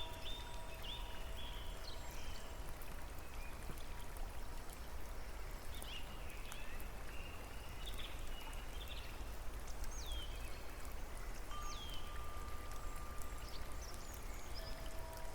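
A steady wash of falling or running water with birds chirping over it in short, quick falling notes. A few soft held musical notes sound near the start and again from about eleven seconds in.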